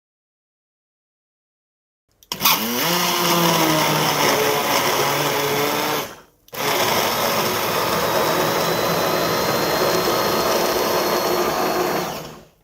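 Electric blender switched on after about two seconds of silence, its motor spinning up with a rising whine and then running loud and steady. It stops for a moment about six seconds in, then starts again and runs steadily until it cuts off near the end.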